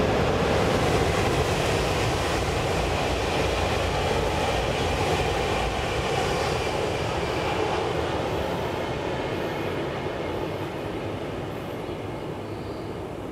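Shinkansen bullet train passing at high speed: a loud, steady rush of wheel and air noise that eases off over the last few seconds as the train moves away.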